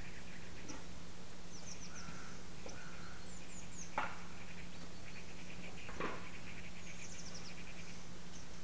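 Small birds chirping faintly over a steady low hum, with two sharp clicks, about four and six seconds in.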